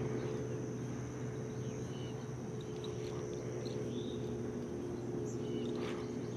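Steady chorus of insects, crickets or katydids, with a few short bird chirps in the middle and near the end, over a steady low hum.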